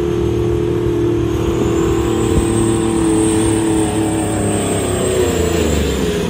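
Diesel semi-truck engine running hard under heavy load while dragging a pulling sled along a dirt track. Its note holds steady, then falls in pitch over the last couple of seconds as the truck comes past close by.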